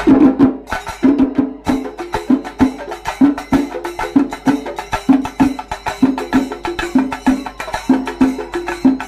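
Kerala chenda drums played with sticks by a troupe: loud, rapid stick strikes on the drumheads over a low beat repeating about three times a second.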